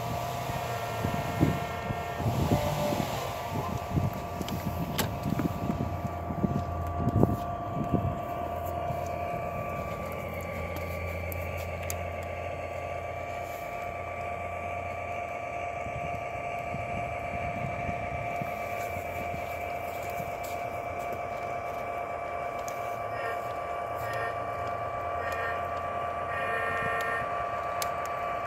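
O gauge model locomotives, a Thomas the Tank Engine and a BNSF diesel, running on the layout track: a steady whine from the motors and gears over a low rumble. Irregular knocks come during the first eight seconds.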